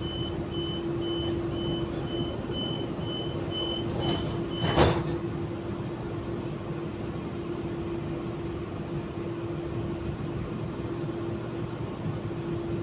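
Door-closing warning beeps on an Auckland AM class electric train: a run of evenly spaced high beeps that ends about five seconds in with the thud of the sliding doors shutting. Under it runs the train's steady hum.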